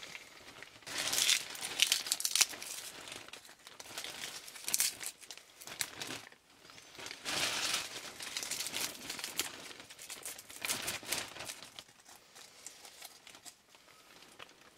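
Dry leaf litter crackling as it is crumbled by hand, in several irregular bursts.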